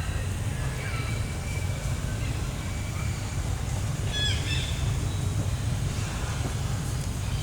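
A steady low rumble with a few short, high-pitched chirping calls from animals: one near the start, one about a second in, and a quick cluster about four seconds in.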